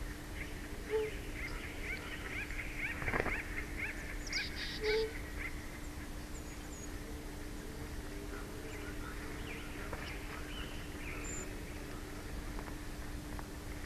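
Bald eagle chittering: a rapid run of thin, high, falling notes lasting a few seconds, with a few fainter calls later, over a steady low hum.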